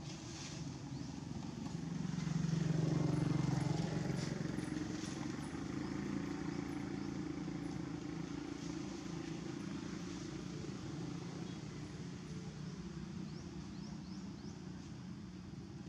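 Low engine rumble of a motor vehicle, swelling to its loudest about three seconds in and then slowly fading, with faint high ticks and chirps over it.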